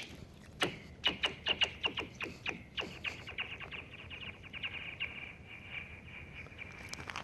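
A flat rock skipping and sliding across thin, newly frozen lake ice: a run of sharp impacts that come quicker and quicker, each setting the ice ringing with a high, chirping ping. The pings merge into a steady high ringing tone that fades out near the end.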